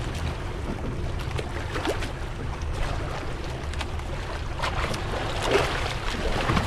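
A fishing boat's engine running steadily with a low hum. Water and wind noise swell over it now and then, most strongly about five seconds in.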